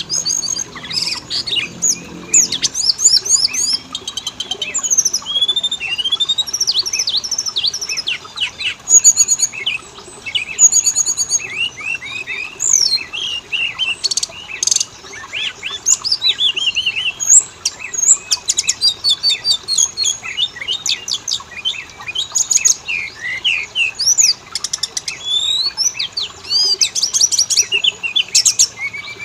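Oriental magpie-robin (kacer) singing a continuous, fast and varied song of high whistles, sweeping notes and rapid trills. It is a lure recording played to set a kept magpie-robin singing back.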